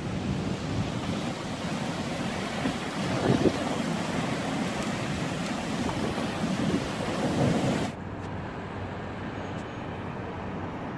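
Thunderstorm noise: a steady rushing with two louder swells a few seconds apart. About three-quarters of the way in the rush cuts off suddenly, leaving a fainter, duller noise.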